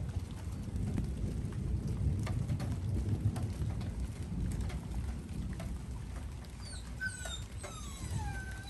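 Thunderstorm with a long, low thunder rumble, louder in the first half, and scattered raindrop ticks. Near the end come a few short, high calls that fall in pitch.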